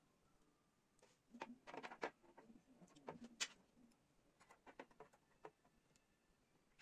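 Small metal construction-kit parts, perforated steel strips, brackets and bolts, clicking and clinking against each other as they are handled and fitted together: a scatter of light clicks, the sharpest about three and a half seconds in.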